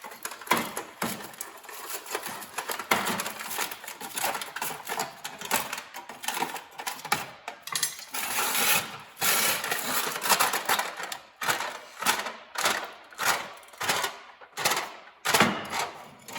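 Metal heat-treat wrap being prised and torn open with a screwdriver around a hot, freshly hardened piece of A2 tool steel: a string of irregular metallic clicks, scrapes and crinkles, falling into short repeated strokes in the second half.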